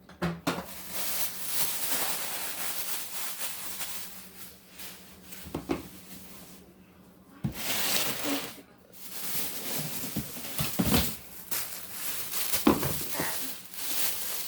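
Plastic grocery bags rustling and crinkling while jars and bottles are taken out, with a few knocks as containers are set down.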